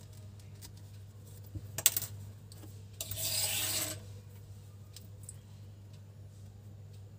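Handling noise from crocheting with a metal hook and yarn: a few sharp clicks about two seconds in, then a rubbing scrape lasting about a second, over a steady low hum.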